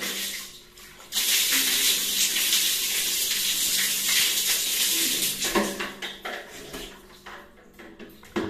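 Water poured from a plastic dipper over a person's head, splashing onto a tiled bathroom floor. The rush of water starts suddenly about a second in and lasts about four seconds, then gives way to scattered drips and light knocks.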